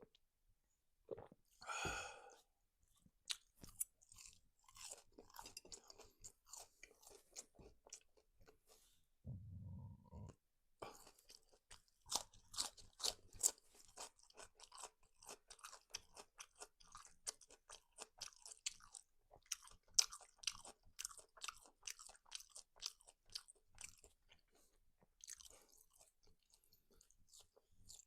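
Close-miked chewing of a fried cutlet and french fries, with many crisp crunching clicks in an irregular run. A brief low rumble comes about ten seconds in.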